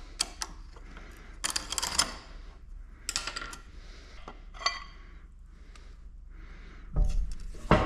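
Metal parts of a 4L80E transmission's direct drum and sprag clutch being handled on a bench: scattered light clicks and clinks, a few ringing briefly, and a heavier knock near the end.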